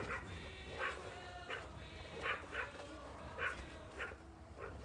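Large dog making short, repeated vocal sounds, roughly one every half second to second, while tugging on a stick held in a person's hand.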